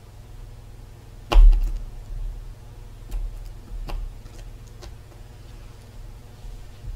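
Light knocks and clicks of a metal pick and hands working a silicone mould against a tabletop, with small bits being picked out; one sharper knock about a second and a half in, then a few softer ones.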